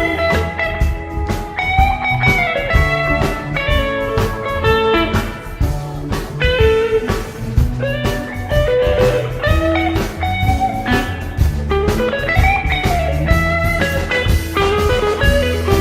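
Live rock band playing an instrumental passage: a lead electric guitar with sliding, bending notes over bass and a drum kit.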